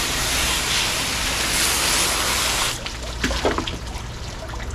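Garden hose spraying water onto a fish-cleaning table, a steady hiss that cuts off suddenly about three seconds in.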